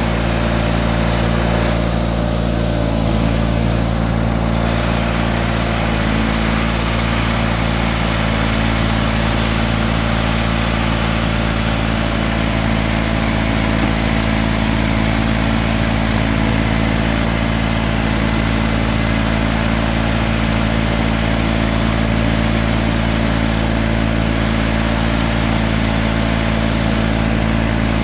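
John Deere 318 garden tractor's Onan twin-cylinder engine running steadily at a constant working speed, driving the front-mounted snowblower as it throws snow.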